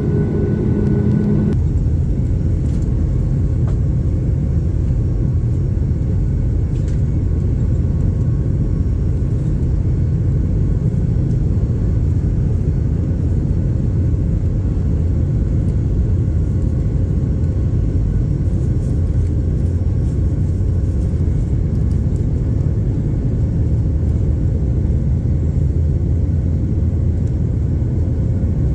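Airliner's engines and rushing air heard from inside the passenger cabin during takeoff: a loud, steady low rumble. A humming tone over it cuts off about a second and a half in.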